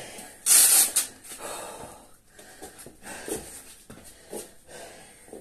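Heavy breathing of a man winded after a burpee and kettlebell swing workout: a loud, sharp exhale about half a second in, then several quieter breaths.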